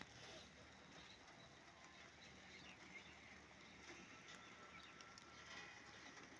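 Heavy rain falling on bare dirt ground, heard as a faint steady hiss.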